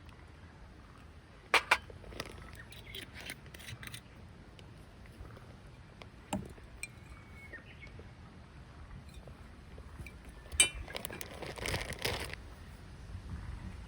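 Camp cookware and utensils being handled: scattered sharp clinks and knocks, two loud ones about a second and a half in, and a busier stretch of clinking and rustling near the end.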